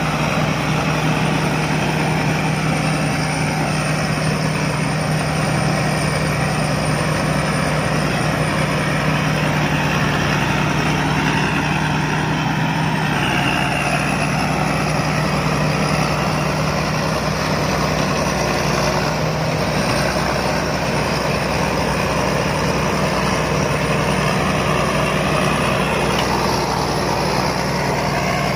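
Rice combine harvester's diesel engine and machinery running steadily, a constant low hum under a dense mechanical din, with small shifts in engine pitch about halfway through and near the end.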